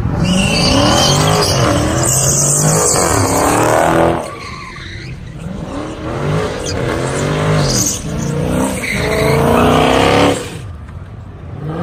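Dodge Challenger engine revving hard through a burnout, tyres spinning and squealing on the pavement. The revs swing up and down, ease off about four seconds in, build again and fall away near the end.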